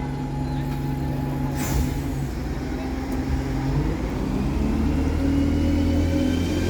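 Bus engine running, then pulling away, its pitch and loudness rising over the last few seconds.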